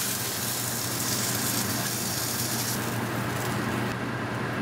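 Tuna steaks sizzling steadily in oil in a hot nonstick frying pan, over a steady low hum.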